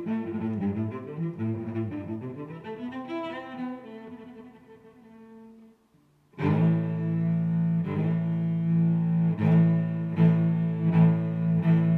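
Background music on bowed strings, cello and double bass to the fore. It fades out about halfway, then after a brief silence a new string passage starts with long, held notes.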